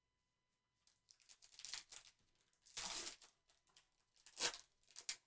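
Plastic trading-card packaging, the wrapping of a Panini Chronicles football blaster box and its packs, being torn open and crinkled by hand. It starts about a second in as scattered crackling, with a few louder tearing rustles, the loudest about three seconds in.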